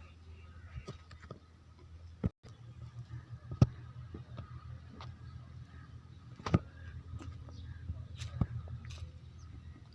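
Low, steady machinery hum with scattered sharp knocks and clicks over it. The sound drops out briefly about two seconds in.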